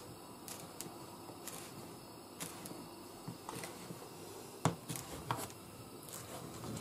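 Kitchen knife chopping anchovy fillets on a plastic cutting board: irregular light taps of the blade against the board, with two louder knocks about two-thirds of the way through.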